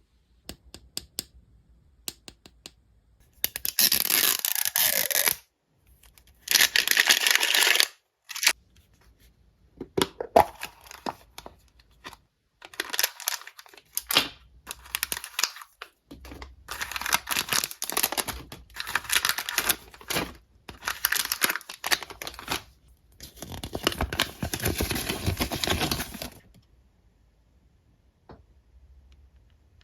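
Packaging being torn open and handled: a series of loud tearing rips, each a second or two long, with small clicks and rustles between them.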